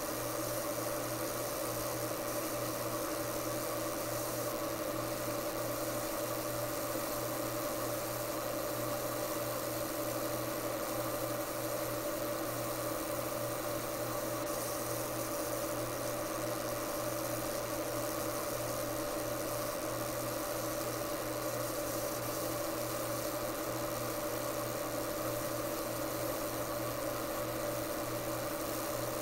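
30-watt fiber laser engraver running as it marks lettering into an AR-15 lower receiver: a steady machine hum with a high hiss.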